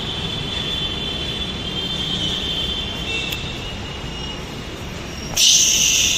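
Delhi Metro train running, a steady rumble with a high whine that slowly fades. A loud hiss starts suddenly near the end.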